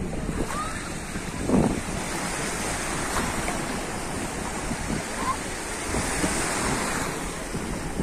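Small sea waves breaking and washing at the shoreline, a steady surf noise, with wind buffeting the microphone; a brief louder buffet about one and a half seconds in.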